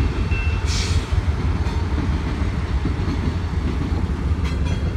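CSX freight train passing close by, its diesel locomotives and then autorack cars rolling past with a steady low rumble of engines and wheels on the rails. A short hiss comes just under a second in.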